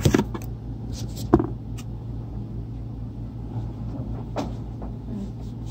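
Steady low hum of an electric floor fan running, with a few short knocks from the phone being handled near the start and about a second and a half in.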